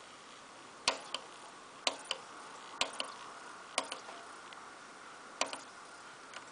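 Sony CDP-C345 CD changer skipping through tracks as its track-skip button is pressed: five sharp double clicks about a second apart, over a faint steady hum.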